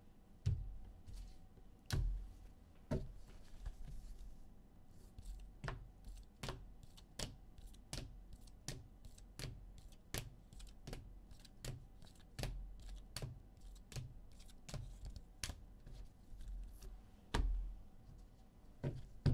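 Rigid plastic top-loader card holders clicking against one another as a stack of sports cards is flipped through one by one, about one or two sharp clicks a second. A couple of heavier knocks as card stacks are set down on the table.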